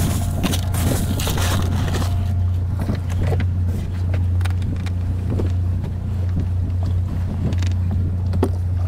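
Steady low hum of a boat's engine running, with scattered small clicks and knocks of handling on deck. A rustling noise in the first two seconds fades out.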